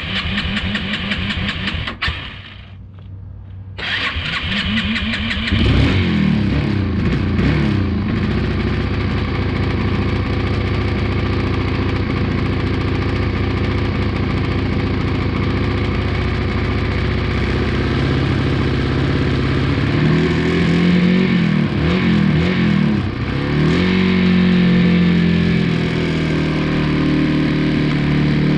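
2002 Yamaha 225 motorcycle's engine being cranked by its starter, pausing, then cranked again and catching about six seconds in. It then runs steadily, with the revs rising and falling a few times in the later part.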